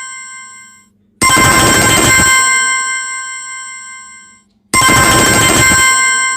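Samsung Galaxy M21 ringtone: a single bell-like chime with several steady overtones. It rings twice, about three and a half seconds apart, and fades away after each ring. It cuts off suddenly at the end.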